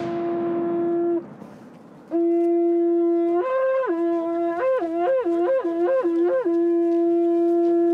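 Horagai (Japanese conch-shell trumpet) blown in a call. A held low note breaks off about a second in, and after a short pause the low note returns. It steps up to a higher note, flips quickly back and forth between the two several times, then settles on a long held low note. In the procession the horagai serves as the signal to stop and rest.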